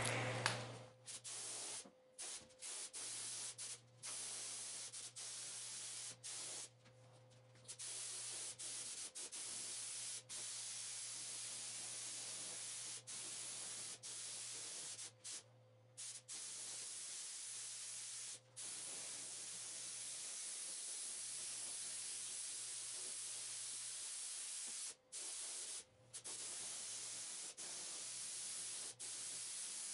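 Faint hiss of a gravity-feed spray gun spraying primer onto a car bumper, in long passes broken by short breaks where the trigger is let go. A low steady hum runs underneath.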